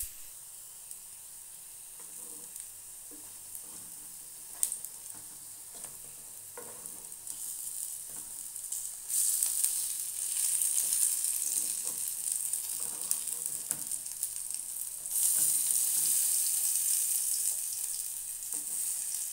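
Food sizzling in hot oil in a pan, stirred with scraping strokes; the sizzle grows much louder about halfway through and again a few seconds later.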